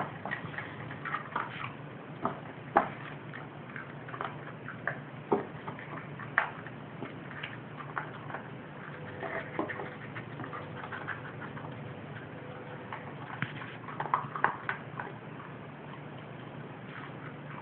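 Dogs' paws and claws pattering and clicking on a hard floor as they run about, in irregular quick taps.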